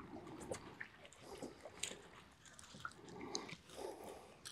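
Faint, irregular small clicks and ticks from a spinning rod and reel being handled, over a low hiss.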